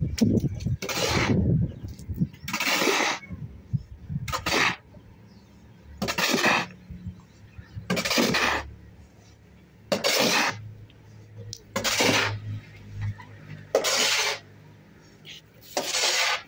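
Steel shovel blade scraping across a concrete floor as it turns a heap of sand and cement mix for mortar, a rasping scrape about every two seconds, nine strokes in all.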